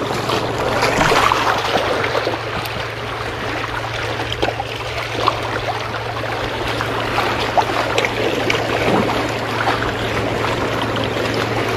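Sea water washing and lapping against shore rocks, a continuous rushing wash with scattered small clicks, over a steady low hum.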